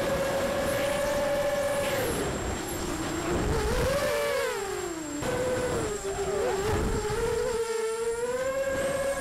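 Emax Nighthawk 250 quadcopter's four brushless motors and propellers whining, the pitch dipping and rising as the throttle changes through the flight, over a rush of wind noise.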